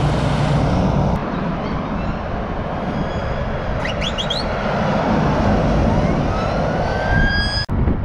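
Heavy lorries passing at close range: diesel engine and tyre noise, with a few short high chirps about four seconds in and a slow rising whine near the end that cuts off abruptly.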